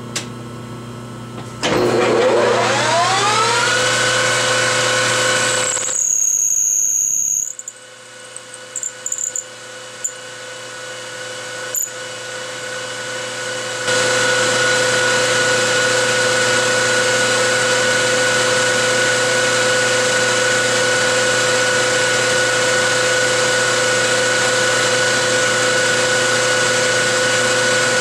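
A 13-inch metal lathe's spindle starts about two seconds in, with a whine rising in pitch as it spins up, then runs steadily. After a sudden drop with a few clicks, it comes back from about halfway and runs at a steady whine while the spinning chrome moly tube is pressed against the fixed tube in a friction weld, the joint heating until it glows red.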